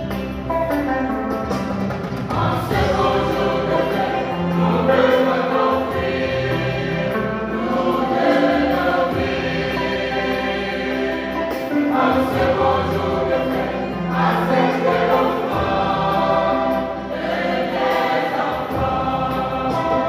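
Youth choir of girls and young men singing a hymn together, the voices swelling and easing in sung phrases.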